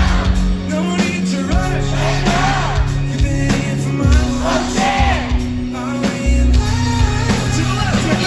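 Live pop-rock band playing, with a lead vocal sung over sustained bass notes and a drum beat.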